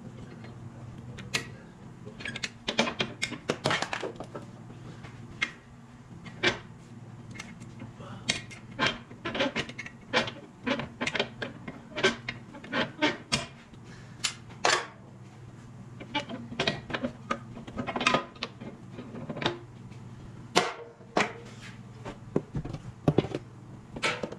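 Irregular metallic clicks, taps and clanks of pliers and steel pins being worked at the mounts of a snow plow's hydraulic lift cylinder as it is disconnected, over a steady low hum.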